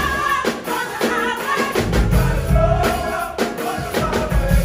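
Live gospel music: a band with a drum kit plays under singing voices. The low bass drops out for the first couple of seconds and then comes back in.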